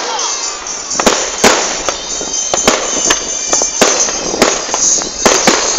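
A fireworks display with shells bursting in quick, irregular succession: about ten sharp bangs and crackles over a constant rumble and crackle.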